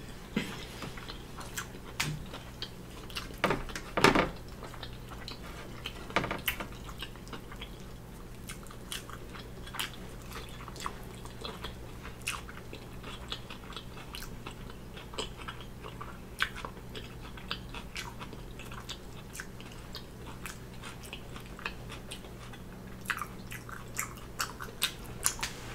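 A person chewing a mouthful of BBQ bacon burger, with scattered wet mouth clicks and smacks. There is a louder cluster about four seconds in, another about six seconds in, and a run of clicks near the end.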